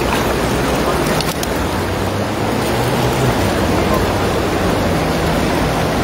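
Shallow water sloshing and splashing as a person wades and gropes with his hands in it, a steady rushing noise without pause.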